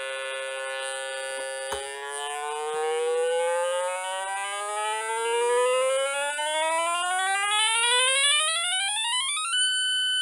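Buzzy electronic tone from a 555 timer sound generator, its pitch set by a digital potentiometer being stepped. The tone holds fairly steady for the first couple of seconds, then glides smoothly upward over several seconds and settles on a steady high note near the end, with a single click about two seconds in.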